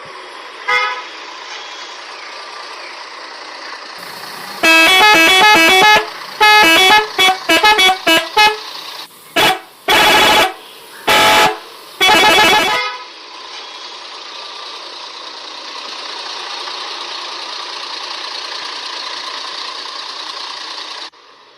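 Toy bus's electronic 'telolet' horn playing a run of short horn notes that jump between pitches, loud, for several seconds, from a steady electronic hum that starts and stops with it. A short beep sounds about a second in, and the hum cuts off suddenly near the end.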